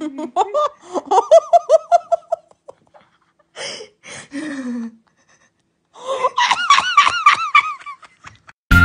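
A person laughing in repeated breathless bursts with gasps, a short lull in the middle and a higher-pitched round of laughter toward the end.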